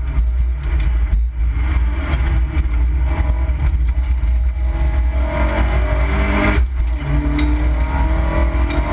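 Opel Corsa B rally car's engine heard from inside the cabin, revving hard with its pitch climbing under acceleration, cutting out briefly at gear changes about a second in and again about two-thirds through. A steady heavy low rumble runs underneath.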